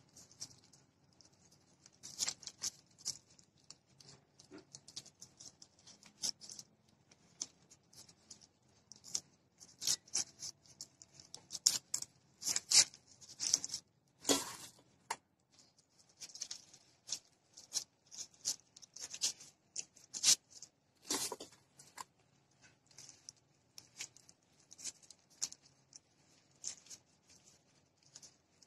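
Disposable plastic glove crinkling and rustling as a hand presses and spreads cooked glutinous rice over a nori sheet on a bamboo rolling mat: irregular short crackles and soft pats, loudest around the middle.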